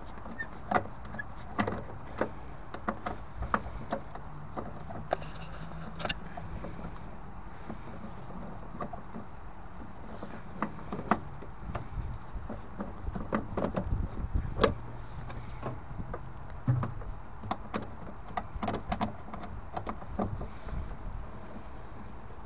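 Screwdriver working the diverter valve's fixing screws inside a Vaillant EcoTec Pro 24 combi boiler: scattered small clicks and taps of the tool and gloved hands against the boiler's metal and plastic parts.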